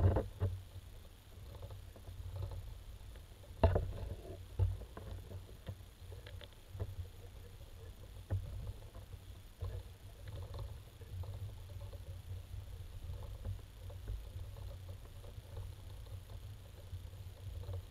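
Underwater sound picked up by a submerged camera: a low, uneven rumble of moving water with scattered knocks and clicks, the loudest at the very start and about four seconds in.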